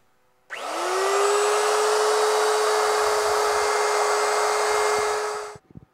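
Handheld wood router switched on, its motor whine rising quickly to a steady high pitch and running at full speed while routing a hinge mortise, then cutting off sharply near the end.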